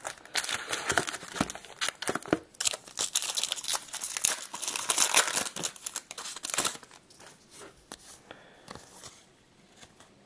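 A foil baseball card pack being torn open, its wrapper crinkling loudly for several seconds. Near the end it gives way to a quieter rustle of the cards being handled.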